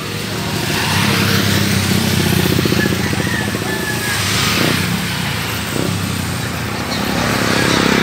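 Road traffic passing close by: a motorcycle engine goes past in the first few seconds, with tyre and road noise, and another vehicle comes by near the end.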